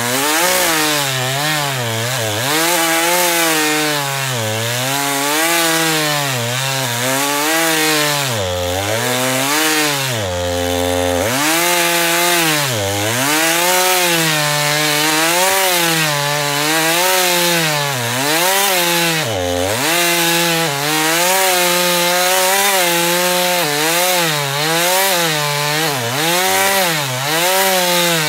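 Gas chainsaw cutting through a felled tree trunk, its engine pitch dipping and recovering about once a second as the chain bogs in the wood under load.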